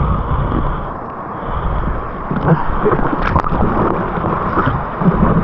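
Water sloshing and splashing, with wind buffeting the microphone.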